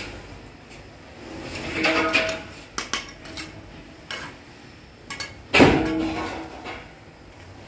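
Bricklayer's steel trowel scraping mortar and knocking bricks into place: a scrape about two seconds in, a few sharp clicks, then a louder ringing knock just past halfway.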